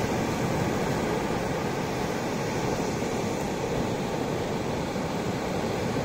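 Ocean surf: small waves breaking near shore and washing up the beach, heard as a steady, even rush.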